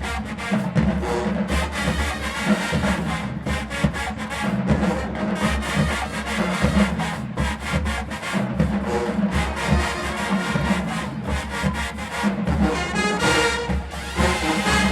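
HBCU-style marching band playing: a dense drumline beat under brass and low horns, with held brass chords coming forward near the end.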